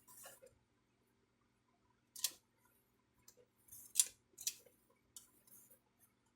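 Short, sharp clicks and scrapes of hard plastic printer parts being handled, a handful scattered through, the loudest about two and four seconds in.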